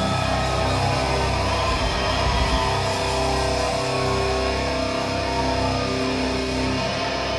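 Live heavy metal band playing through a club PA: distorted electric guitars and bass, with long held notes.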